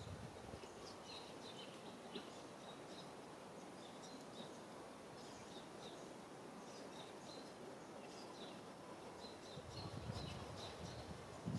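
Quiet outdoor ambience with a steady low hiss and small birds chirping in short, high notes throughout, with a brief low rumble about ten seconds in.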